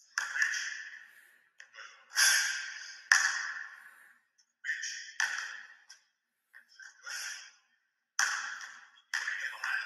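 A basketball bouncing on a hardwood gym floor: a series of sharp, irregularly spaced hits, each ringing out in the gym's echo.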